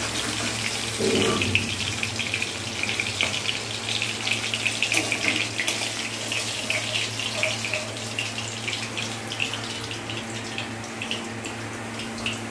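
Hot oil sizzling and crackling in an aluminium kadai as fried fish pieces are lifted out with a metal spatula, with a louder scrape of the spatula against the pan about a second in. The sizzle eases slightly toward the end.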